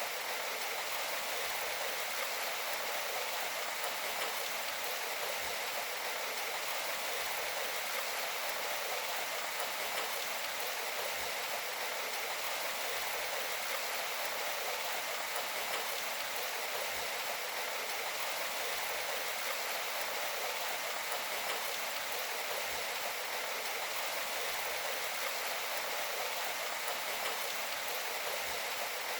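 Steady rainfall: an even hiss of water with no single drops or other sounds standing out, thin with no low rumble.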